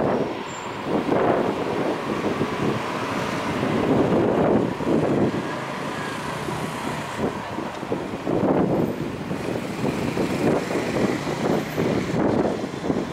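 Electric commuter train running past a level crossing, its wheels rumbling on the rails in repeated surges as the cars go by.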